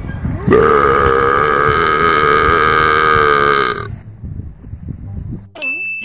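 A person's long, loud burp, held for about three seconds with a slightly wavering pitch, starting about half a second in.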